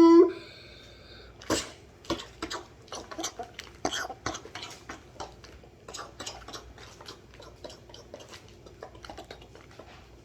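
An irregular run of light, sharp clicks and taps, several a second. The loudest comes about one and a half seconds in.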